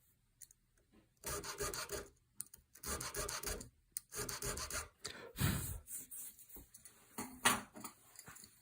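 Homemade checkering tool, a converted flat-bladed screwdriver, cutting checkering lines into wood in a series of short rasping strokes, each under a second long, with a sharper tap near the end.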